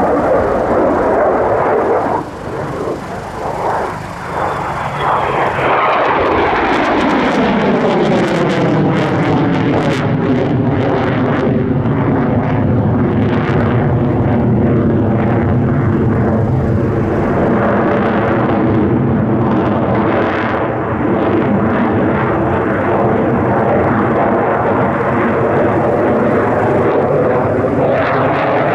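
Twin General Electric F404 turbofan engines of an F/A-18C Hornet, loud and steady as the jet manoeuvres overhead. The sound eases briefly early on, then comes back strong with a phasing sweep that falls in pitch and settles as the jet passes.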